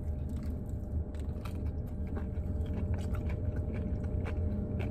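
Biting into and chewing a pressed Cuban sandwich, its crisp toasted bread crunching in many short crackles, over a steady low hum.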